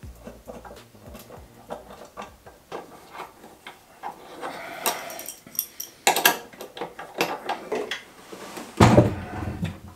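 A benchtop drill press being shifted and set down on an MDF cabinet top: its metal base knocks and slides on the board. A heavy thud just before the end is the loudest sound.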